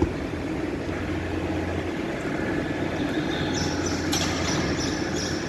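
Rotary milking parlour machinery running with a steady low hum. From about three and a half seconds a rhythmic hissing joins it, about two beats a second, with a sharp click near four seconds.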